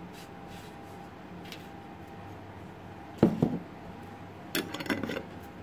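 A glass jar is set down with one sharp knock about three seconds in, followed by a quick run of small clicks and clinks of objects being handled on the tabletop.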